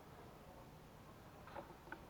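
Near silence: faint outdoor background with a couple of small clicks near the end.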